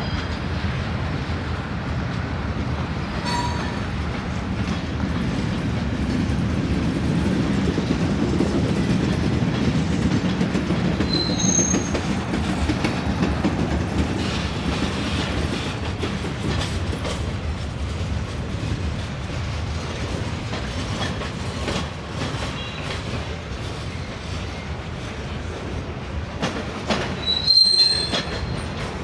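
Freight train of log cars rolling past: a steady rumble of wheels on rail, with brief high wheel squeals about eleven seconds in and a louder one near the end.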